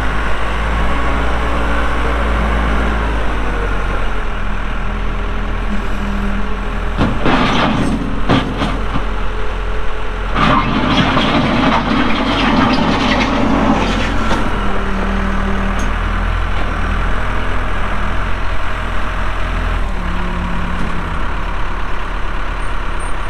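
Case 580L backhoe's Cummins diesel engine running steadily while the machine is worked, its pitch shifting a little. Two louder rough, noisy stretches stand out, a short one about a third of the way in and a longer one about halfway through.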